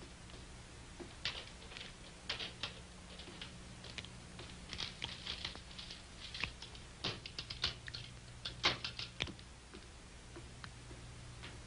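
Irregular light clicks, taps and scuffs in quick runs, busiest in the middle and thinning out near the end, over a steady low hum.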